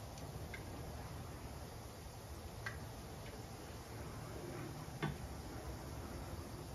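Faint steady low hum with a few small clicks, like ice knocking in a drink, and about five seconds in one sharper knock as a glass of iced tea is set down on a glass-topped table.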